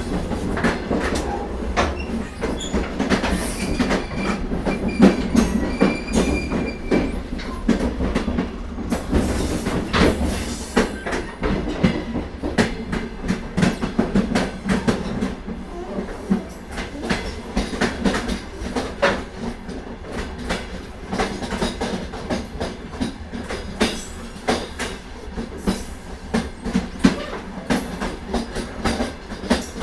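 Ambience inside an old train carriage on the move: a steady low rumble with constant irregular clattering and knocking from the wheels and car body. A faint high squeal comes a few seconds in.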